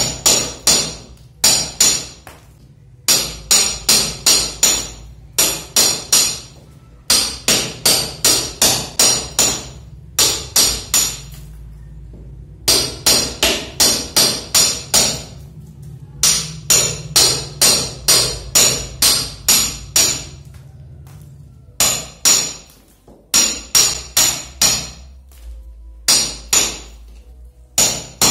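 Hammer striking a steel masonry chisel, cutting a groove into a plastered brick wall: runs of sharp metal-on-metal blows, about three a second, broken by short pauses.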